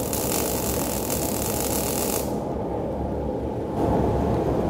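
STT (Surface Tension Transfer) MIG welding arc crackling on an open-root pipe pass, then cutting off suddenly a little over two seconds in as the bead is finished. A lower steady mechanical rumble carries on after it and gets louder near the end.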